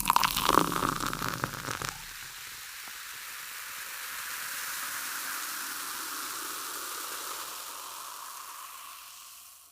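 Cartoon sound effect: crackling for about the first two seconds, then a steady hiss that swells slightly and fades out near the end.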